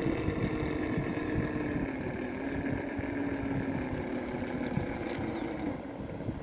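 Electric motor and geared drivetrain of a 1/10-scale FTX Mauler RC crawler whining as it creeps over rock, the pitch shifting with the throttle and stepping down a few times. A brief high hiss about five seconds in.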